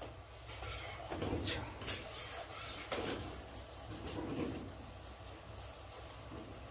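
Hand rubbing across a whiteboard, wiping off marker in several scrubbing strokes over a few seconds.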